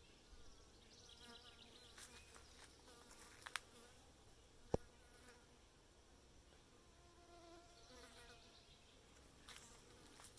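Faint buzzing of a flying insect such as a fly or bee, its pitch wavering as it comes and goes. Two sharp clicks stand out, about three and a half and nearly five seconds in.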